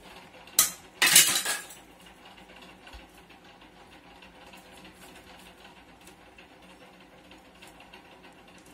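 Two brief clatters of hard objects, one just after the start and a longer one about a second in, then low steady room noise.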